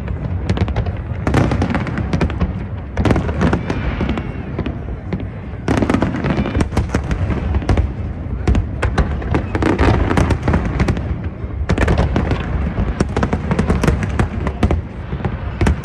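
Fireworks going off: a dense, continuous run of crackling bangs and low booms, many shots a second.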